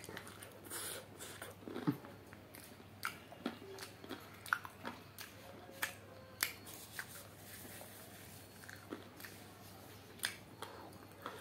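A person chewing and biting chicken curry with rice, eaten by hand: short mouth clicks and smacks at irregular intervals, over a faint steady low hum.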